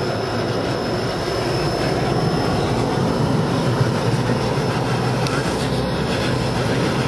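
Steady road noise inside a moving car's cabin: tyres and engine running at speed.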